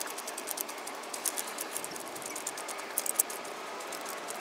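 The Mitsubishi Eclipse Cross's standard scissor jack being wound up by hand, its threaded screw turning with rapid, uneven light clicking over a faint hiss.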